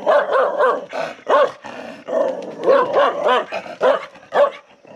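Chained black farm dog barking repeatedly at approaching strangers, a quick run of loud barks, two or three a second: territorial guard barking.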